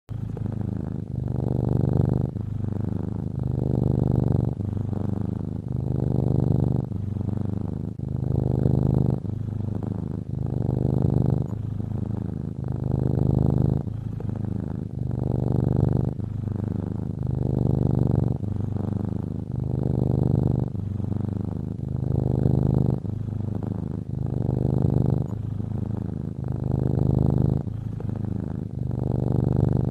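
Domestic cat snoring in its sleep: a low rattling snore on each breath, swelling and easing in a steady rhythm of about one breath every two seconds.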